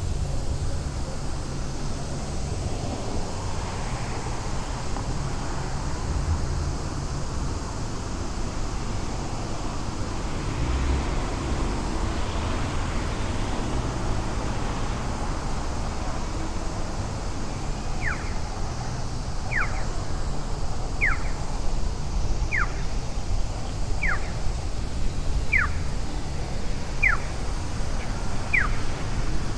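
Low, steady rumble of city traffic. From about two-thirds of the way in, a short downward-sweeping chirp repeats evenly about once every second and a half.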